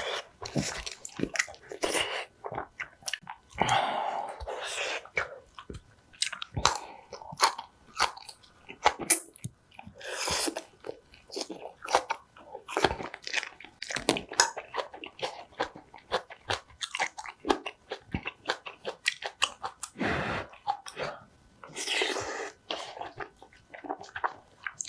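Close-miked eating: a woman chewing and biting soft rice-and-nurungji porridge and spicy green onion kimchi, with many quick, irregular wet smacks and clicks.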